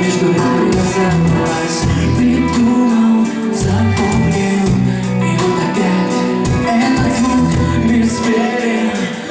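A band playing live music, loud and steady, with a strong bass line and a regular beat.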